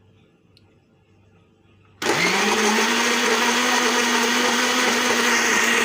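Electric countertop blender switched on about two seconds in, its motor quickly rising in pitch and then running at a steady high whine as it purées boiled potatoes with water.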